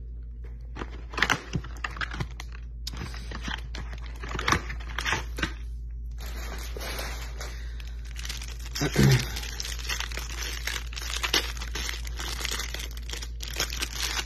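Plastic wrapping crinkling and tearing as a Panini Prizm hanger box is opened and its shrink-wrapped stack of trading cards is pulled out and unwrapped. The rustling comes in short bursts at first, then runs almost without a break, with one louder low bump about nine seconds in.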